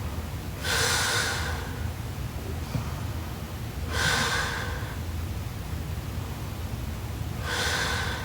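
A young woman snoring in her sleep: three slow, rasping breaths about three and a half seconds apart, each lasting about a second.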